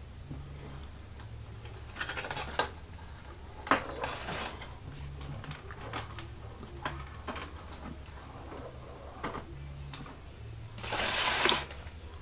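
A small Lego Technic motor whirring, switching on and off, as the garbage truck's rear loader works, with scattered clicks from the plastic mechanism and crackling of a plastic trash bag. A louder rustle lasts about half a second near the end.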